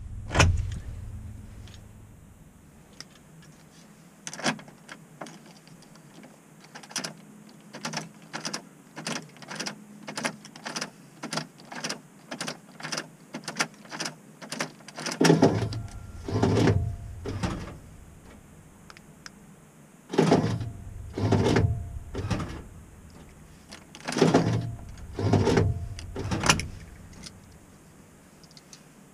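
Ignition key clicked quickly back and forth in a Mk6 Ford Transit's lock barrel, a rapid run of short clicks, then the van's central-locking door lock actuators clunk in several quick bursts. The actuator bursts are the central locking signalling that it has entered fob-programming mode and then that a new fob has been accepted.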